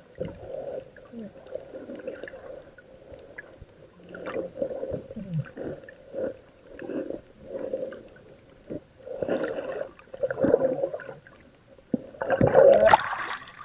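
Muffled underwater water noise from an action camera moving through shallow sea: swishing swells about once a second, with a louder rush of water near the end.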